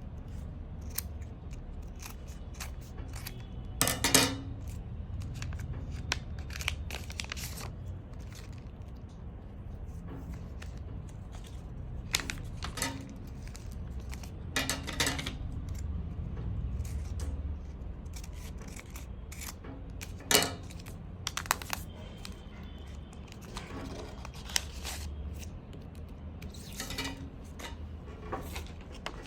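Plastic blind-bag packaging being handled and torn open: scattered clicks and taps with a few short bursts of crinkling and tearing, over a low steady hum.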